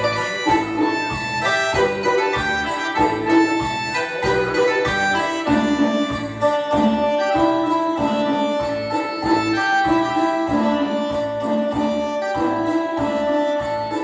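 Dance music: a melody of long held notes over a steady, evenly repeating drum beat.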